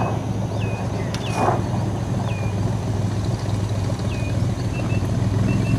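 Cessna 206's piston engine and propeller running at a steady low drone as the plane taxis. A bird calls over it, a short falling whistle repeated about five times, and there is a single click about a second in.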